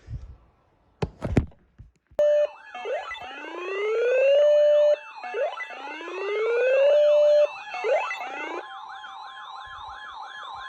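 A few short knocks, then layered electronic emergency-vehicle sirens. Rising wails climb, hold and cut off twice, then about two-thirds of the way in the sirens switch to a fast yelp warbling about four times a second over a steady tone.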